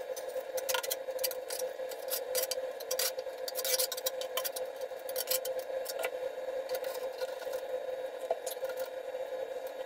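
Tile adhesive being scraped and spread on the back of a ceramic tile with a trowel, and the tile being set against the wall: irregular small scrapes, squelches and clicks over a steady hum.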